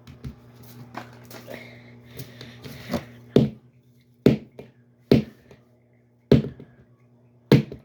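Hatchimal egg's plastic shell being smashed and crushed: softer crackling knocks, then five sharp loud knocks about a second apart.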